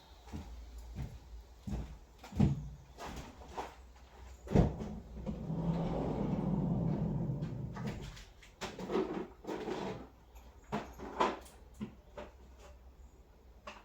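Clicks and knocks of bolts, washers and hand tools being worked while bolting a Land Rover Defender's rear seat box into place, with a steadier low grinding sound for about three seconds midway.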